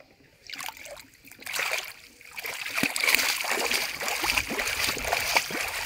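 Water splashing inside a bamboo polo fish trap held down in shallow floodwater: a couple of short splashes, then continuous churning splashing from about halfway through.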